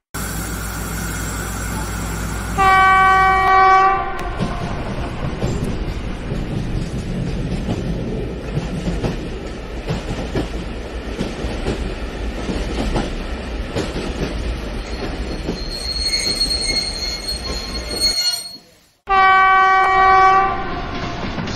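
Train running on rails with a steady rumble and clickety-clack of wheels over rail joints. A train horn sounds once for about a second near the start and again near the end, and a thin high wheel squeal comes in shortly before the second horn.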